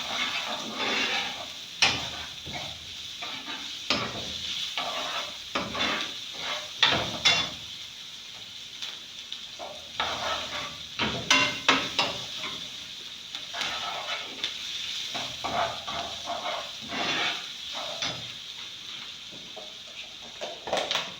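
Onions sizzling in hot oil in a non-stick pan while a cooking spoon stirs them, with irregular scraping strokes and a few sharper knocks of the spoon against the pan.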